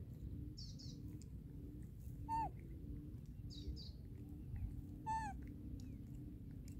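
A baby monkey gives two short falling cries, the second about three seconds after the first, while small birds chirp in the background over a steady low rumble.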